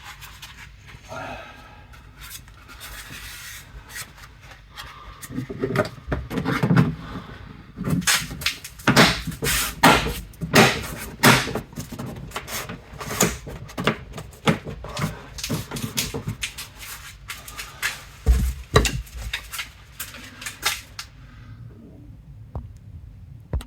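A series of irregular knocks, clicks and rubbing as the last interior trim piece of the Toyota Auris tailgate is handled and pressed back into place. The sounds are loudest and most frequent through the middle and die down near the end.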